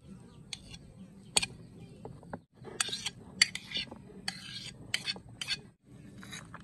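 Diced tomatoes being scraped off a plate into a plastic tub: a run of sharp clicks, knocks and short scrapes as the plate taps the tub's rim and the pieces slide in.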